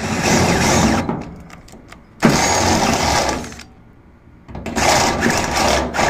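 Cordless drill with a step drill bit cutting through the rusty sheet steel of a 1954 VW Beetle body, in three harsh bursts of one to two seconds each with short pauses between. The rust holes are being bored out round, ready to be filled with plug patches.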